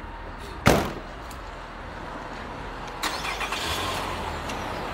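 A car door slams shut under a second in, then the sedan's engine starts about three seconds in and runs steadily.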